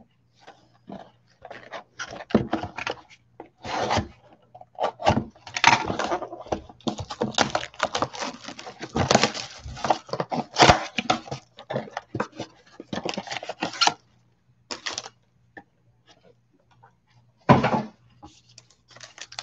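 Gloved hands handling trading card packaging: a foil card pack crinkling and tearing and a thin cardboard box tray rustling and clacking, in irregular bursts that thin out after about fourteen seconds, with one more burst near the end. A faint steady low hum sits underneath.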